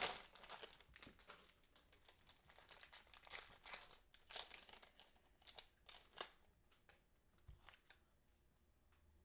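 Cellophane card-pack wrappers crinkling and tearing as trading card packs are opened, in quick irregular crackles that thin out and fade over the last few seconds.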